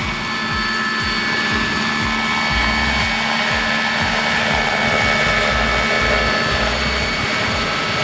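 Large radio-controlled scale model helicopter, a Bölkow Bo 108 replica, hovering just above the grass: a steady high whine from its drive over the rushing wash of the main rotor, with a rapid low beat and gusty rumble.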